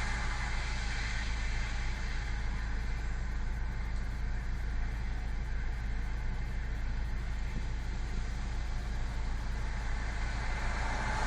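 Wind on the microphone: a steady low rumble with an even hiss above it.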